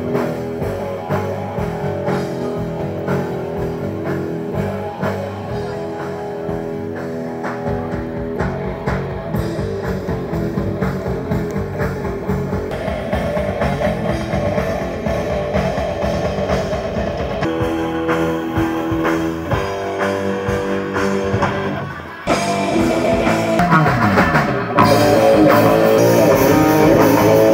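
Rock band playing live with electric guitars and a drum kit, no vocals, getting louder in steps over the last few seconds.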